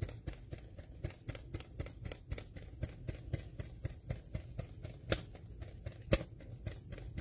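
A stiff paper card waved quickly back and forth as a hand fan, flapping in a rapid, even rhythm, with two sharper snaps near the end.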